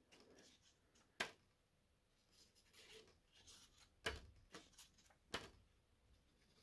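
Mostly near silence, broken by a few short taps and clicks: a felt-tip marker dabbing dots onto a sheet of paper held over the brass exhaust pipe ends, with light paper handling. The sharpest taps come about a second in and a cluster around four to five and a half seconds in.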